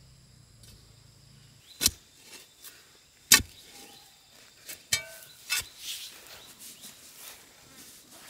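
A digging bar stabbed into dry, stony soil to dig a hole: four sharp strikes at uneven spacing, the loudest in the middle, with a few lighter knocks between. Near the end, softer crumbling and scraping as the loosened soil is scooped out by hand.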